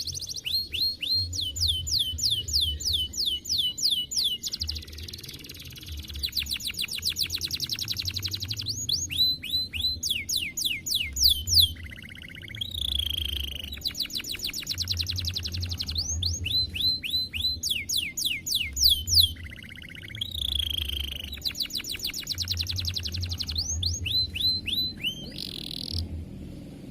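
Domestic canary singing: fast trills of rapidly repeated, downward-sweeping whistled notes, strung in rolling phrases that change every second or two, with a couple of lower, buzzier notes between them.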